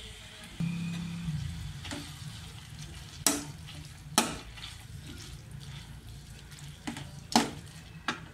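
Perforated steel ladle stirring a dry fry of greens and grated coconut in a steel kadai, striking and scraping the pan with about six sharp metal clinks, the loudest around three and four seconds in and again about seven seconds in. A steady low hum and faint frying run underneath.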